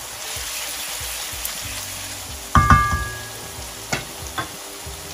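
Chopped onions and ginger-garlic paste sizzling steadily in hot oil in a wok while being stirred with a wooden spoon. A little past halfway comes a loud knock with a short metallic ring, then two lighter taps.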